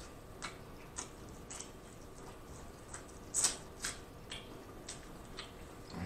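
Close-miked eating of corn on the cob: scattered wet mouth clicks and smacks of chewing, with a couple of louder, sharper bites about halfway through.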